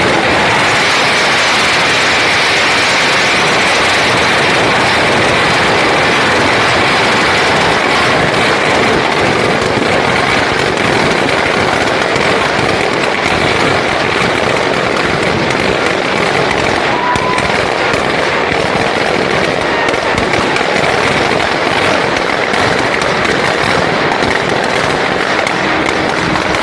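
Firecrackers going off in a dense, unbroken crackle of many small bangs at once.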